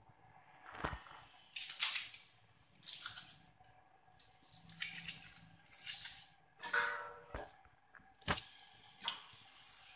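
Fresh lemongrass stalks being snapped and torn apart by hand, about five short tearing rasps, then dropped into a stainless-steel pot of water, with a few sharp knocks against the pot.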